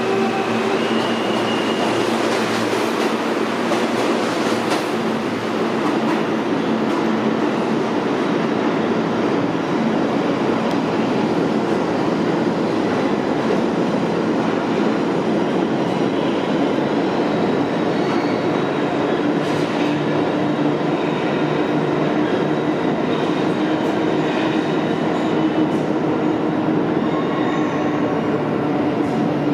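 New York City Subway R160A-2 train running along the track, a steady loud rumble of wheels on rail. A few steady motor tones sound in the first second or two, then fade out.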